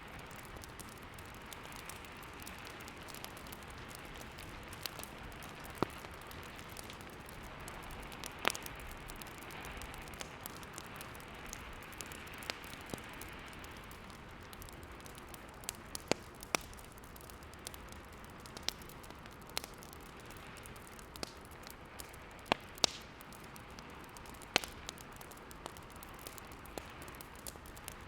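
Fireplace fire crackling, with irregular sharp pops every second or two over a steady hiss of snowstorm wind.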